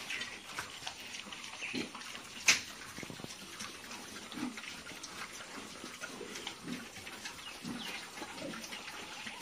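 Pigs grunting now and then in short, low grunts, with one sharp knock about two and a half seconds in.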